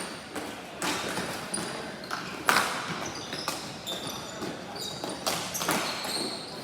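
Ball hockey play on a hard court: sharp clacks of sticks and ball and knocks against the boards, with short high squeaks of sneakers on the floor. One crack, about two and a half seconds in, is louder than the rest.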